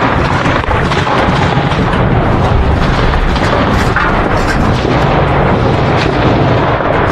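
Heavy close-range gunfire, including a belt-fed machine gun firing from beside the microphone: loud, dense and unbroken, with no pause between shots.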